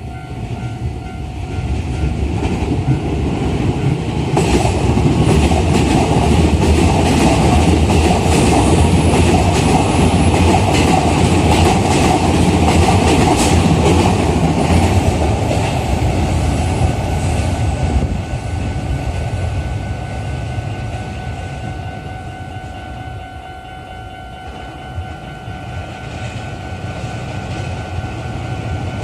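Keikyu New 1000 series electric train passing over a level crossing, its wheels clattering over the rail joints, loudest from about four to eighteen seconds in and then fading away. The crossing's warning bell rings steadily throughout.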